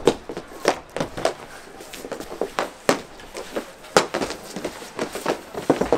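Mini hockey sticks clacking and tapping against the puck and a plastic-tiled rink floor in fast play, a run of sharp, irregular knocks a few times a second.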